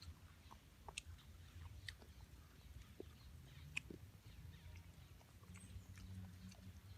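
Faint chewing while eating roast fish, with a few soft sharp clicks over a low steady rumble.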